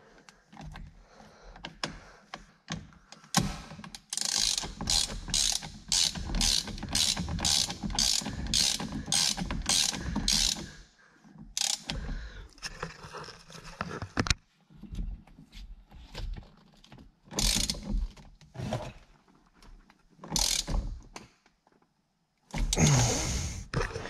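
Hand ratchet turning the M12 centre bolt that holds the new steering wheel on the car's steering shaft. It makes a regular run of clicking strokes, about two a second, for some seven seconds, then scattered clicks and a short louder clatter near the end.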